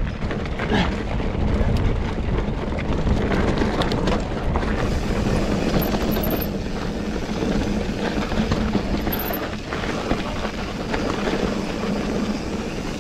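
Mountain bike being ridden along a pebbly singletrack, heard from the rider's camera: a steady rush of tyre and wind noise, with the bike rattling and clicking over the stones.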